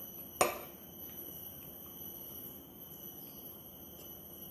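A single sharp clink of a metal fork against a ceramic dish about half a second in, ringing briefly. Otherwise quiet, with a faint steady high-pitched whine.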